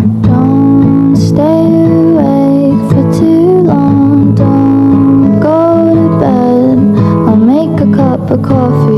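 Background music: a song with plucked guitar and a melody that slides between notes.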